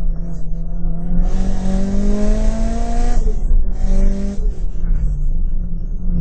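Interior sound of a Mitsubishi Lancer Evolution IX's turbocharged 4G63 four-cylinder pulling hard under full throttle. The engine note rises with a loud rushing hiss, breaks for a moment about three seconds in for an upshift, and climbs again from a lower pitch before the driver lifts off about four and a half seconds in.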